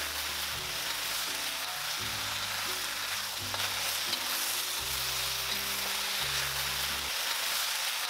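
Chicken and vegetables sizzling in a hot wok as a wooden spatula stirs and tosses them: a steady sizzle throughout. Soft background music with low held notes plays underneath.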